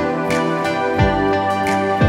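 Background music: sustained, layered instrumental chords with a soft low beat about once a second.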